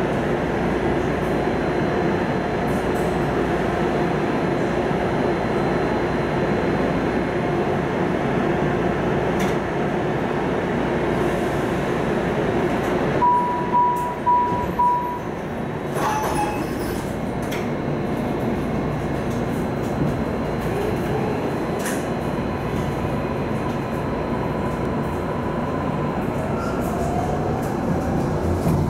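MARTA rapid-transit rail car standing at a station with a steady hum, then three short door-chime beeps about 13 seconds in and a knock as the doors close. Near the end the car starts to move and a rising motor whine comes in.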